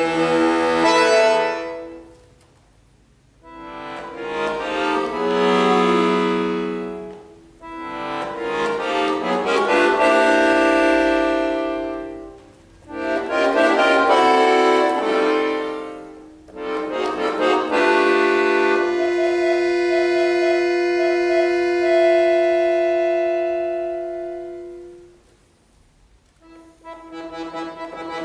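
Solo piano accordion playing phrases of sustained chords separated by brief silences. It then holds one long chord, one note wavering for a while, that fades away; after a short silence, playing starts again near the end.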